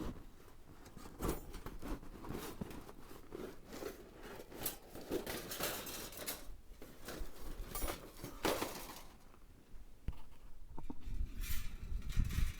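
Irregular rustling and scraping handling noises, short scrapes coming a second or so apart with brief pauses between.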